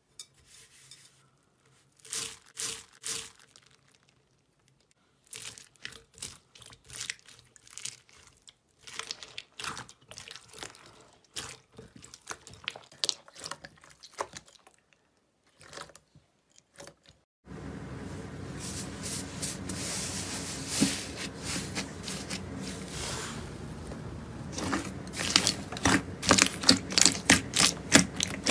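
Slime being squeezed and worked close to the microphone, giving runs of quick crackling and popping clicks. About seventeen seconds in, a cut to another clip brings a steady hiss under denser, louder crackling.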